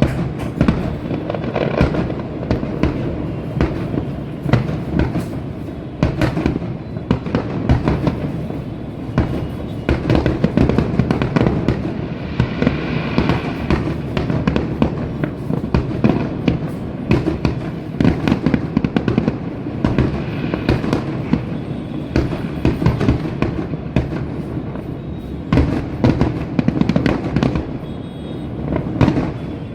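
Aerial shell fireworks going off in a dense, continuous barrage of bangs and crackling, with a brief whistling tone about halfway through.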